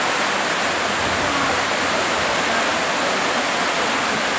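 Steady rushing noise, even and unbroken.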